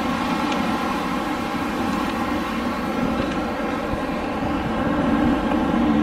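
Winter wind blowing steadily, a low rushing sound that swells a little near the end.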